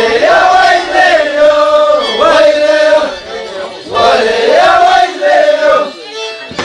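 A group of voices singing a huaylía, the Andean Christmas song-dance of Apurímac, in a high-pitched melody with phrases broken by short pauses.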